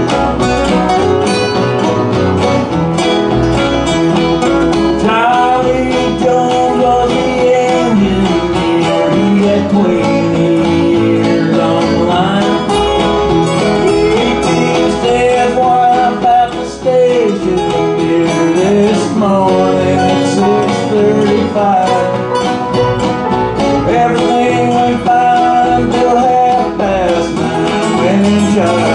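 Acoustic bluegrass-country band playing an instrumental break: strummed acoustic guitars and a banjo under a harmonica playing long, bending notes.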